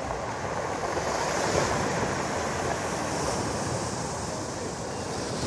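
Storm surf breaking on a pebble beach: a steady wash of noise that swells about a second and a half in as a wave comes in, with wind on the microphone.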